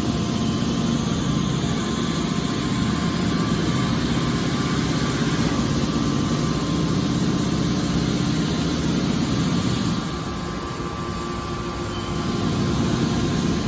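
Scrap metal baler machinery running steadily with a continuous mechanical hum, a little quieter for a couple of seconds about ten seconds in.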